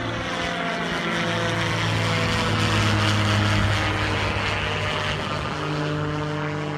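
Viking 110 aircraft engine and propeller of a Zenith CH-650 running at full power on takeoff, fitted with a new high-performance muffler that makes it a little quieter. The engine note falls slowly as the plane passes and is loudest about three seconds in.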